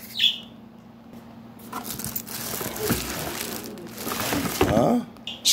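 Clear plastic packaging bags crinkling and rustling against a cardboard box as vacuum cleaner parts are handled and pulled out, with irregular crackles and small knocks.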